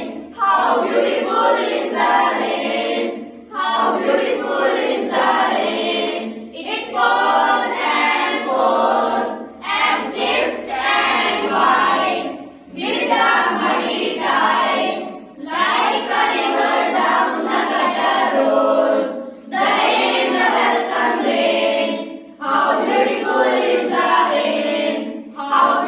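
A class of children chanting a poem together in unison, phrase by phrase, with a short pause about every three seconds between lines.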